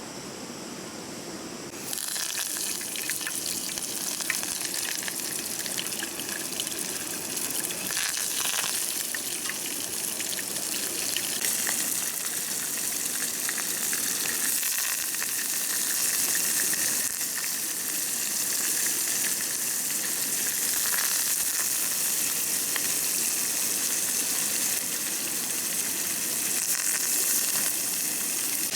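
Stream water rushing steadily, a constant hissing wash that gets abruptly louder and brighter about two seconds in.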